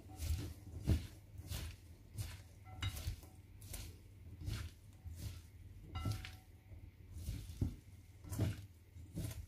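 Gloved hands tossing and squeezing a shredded cabbage salad, freshly dressed with oil and vinegar, in a bowl. Each stroke gives a soft rustle and squish of the leaves, about one and a half strokes a second.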